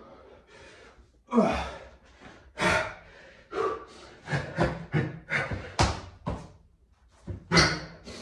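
Hard breathing and sharp exhales mixed with thuds of hands and feet hitting a tiled floor during burpees: a few loud hits, with a quicker run of them in the middle.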